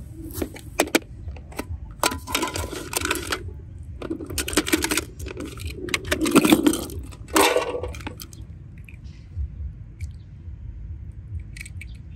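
Clicking and clattering of a clear plastic box packed with water beads (Orbeez) as it is handled and opened, the beads rattling against the plastic. It comes in several short bursts over the first eight seconds, then quietens.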